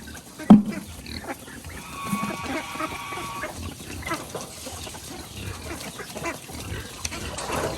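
A flock of farmed ducks quacking and calling, many short calls overlapping, with a sharp knock about half a second in.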